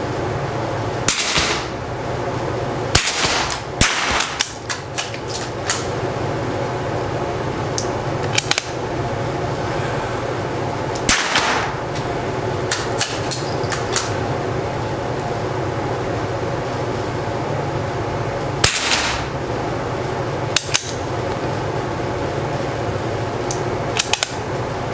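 Single .22LR rifle shots from a Schultz and Larsen target rifle on an indoor range, each a sharp crack with a short echo, a few seconds apart. Lighter clicks and knocks come between the shots.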